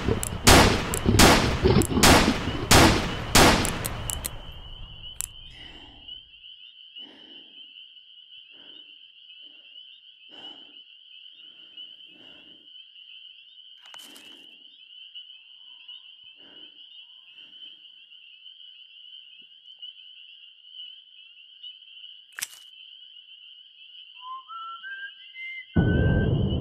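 Revolver shots fired in quick succession, about two a second, for the first four seconds or so. They give way to a steady high-pitched ringing tone, like ringing ears after gunfire, over faint dull thumps. Near the end comes a short rising run of notes, then a sudden loud low sound.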